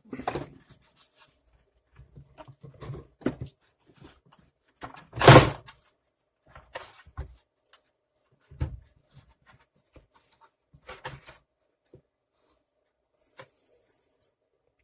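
Plastic parts of a stripped-down vacuum cleaner being handled: scattered clicks and knocks, one louder thump about five seconds in, and a brief rustle near the end.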